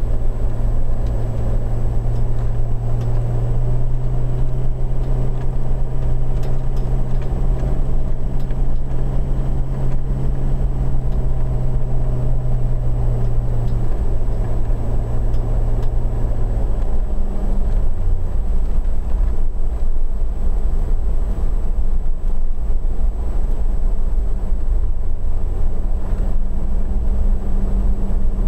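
Toyota LandCruiser 200 Series being driven: a steady low engine hum over road rumble. The engine note drops a little past the middle and rises again near the end.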